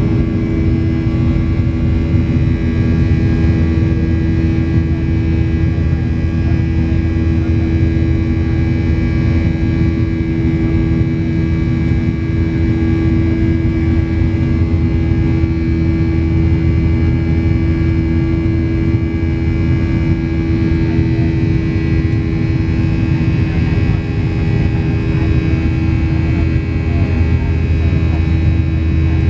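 Boeing 737-700's CFM56-7B turbofan engines at climb power during the initial climb, heard inside the cabin: a loud, steady drone with a deep rumble, a strong constant hum and fainter steady higher whining tones.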